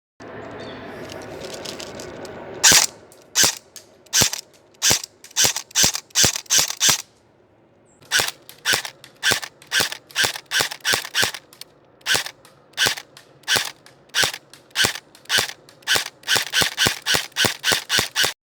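Airsoft AK-47 replica firing single shots: sharp pops at an uneven pace of one or two a second, with a pause of about a second in the middle and quicker shots near the end. A rustling hiss comes before the first shot.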